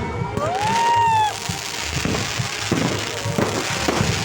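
Fireworks going off: a series of sharp bangs and crackles. Near the start a single whistle rises in pitch and holds for about a second.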